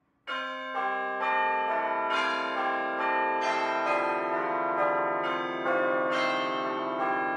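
A melody of bell tones, a new note struck about every half second, each ringing on under the next.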